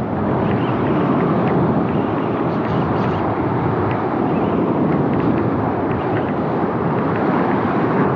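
Steady rush of wind and surf, with wind buffeting the microphone, and a few faint light ticks.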